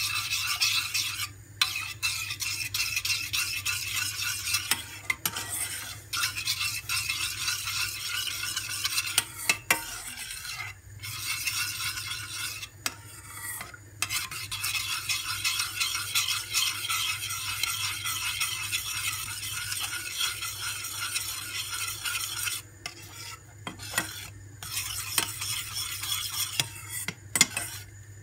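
A metal spoon stirring milk and semolina in a stainless steel pot, scraping the bottom and sides in a steady rasp, with occasional clinks against the pot and a few brief pauses. The pudding is heating up and thickening.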